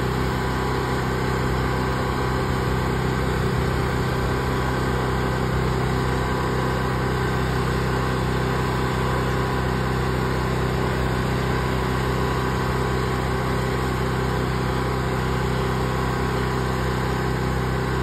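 Pressure washer engine running at a steady speed with an even, unchanging hum while the wand sprays.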